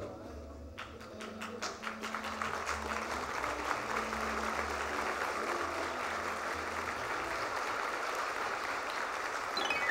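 Audience applause: scattered claps begin about a second in and build into steady clapping, over background music. A falling musical tone starts just at the end.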